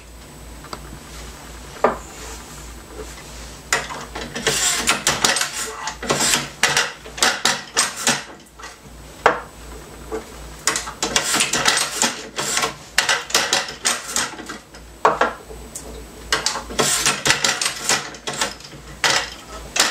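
Irregular clusters of sharp clicks, knocks and rubbing as a 20-gauge shotshell hull is handled and worked through a MEC 600 Jr reloading press to crimp it over a slug, over a faint steady low hum.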